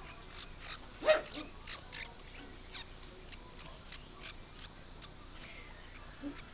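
Baby parrot chick giving short, raspy cheeps a few times a second, with one much louder cry about a second in.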